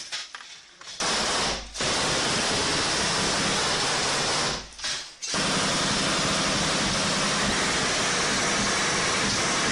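Sustained automatic gunfire at close range, fired in long bursts: firing starts about a second in, breaks off briefly just before the halfway point, then resumes without a pause.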